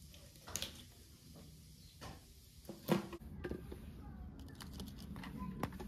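Small clicks and knocks of a knife and hands working raw chicken on a wooden board, with one sharper knock about three seconds in. After that an outdoor background takes over: a low steady hum and light clicking of twigs and branches as apples are handled.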